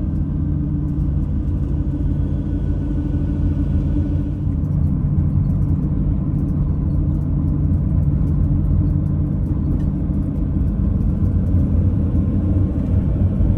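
Camper van driving along the road: a steady low rumble of engine and road noise with no change in speed.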